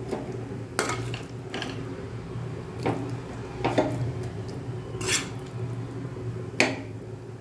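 Metal spoon scraping and clinking against an aluminium pan in about seven separate strokes as the cooked liver fry is scooped out of it. A low steady hum runs underneath.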